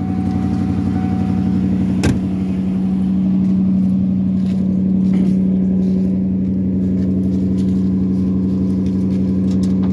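OBS Ford F-150 idling steadily through a Flowmaster Super 44 exhaust, still warming up after a cold start. A single sharp click about two seconds in.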